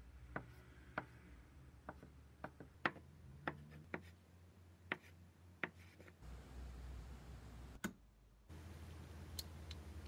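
A kitchen knife cutting ham into thin strips on a wooden cutting board: about nine separate sharp knocks of the blade on the board, at an uneven pace.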